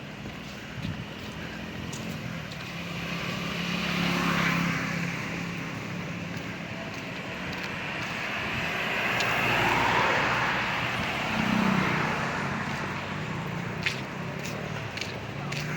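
Road traffic: motor vehicles passing, the noise swelling and fading twice, about four and ten seconds in, over a steady low engine hum.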